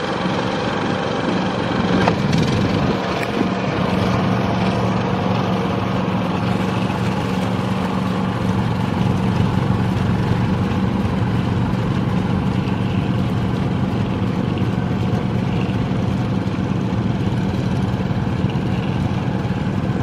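Rice transplanter's small engine running steadily at an even speed.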